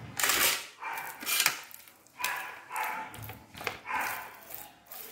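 A dog barking repeatedly, about five short barks spread through a few seconds, with a sharp click about a second and a half in.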